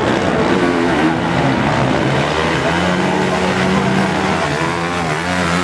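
Several motocross motorcycles running on the track, their engines rising and falling in pitch as the riders accelerate and shift.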